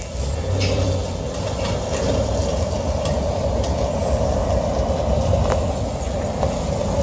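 Ford F-150 pickup towing a boat on a tandem-axle trailer, driving by with a steady low rumble of engine and tyres.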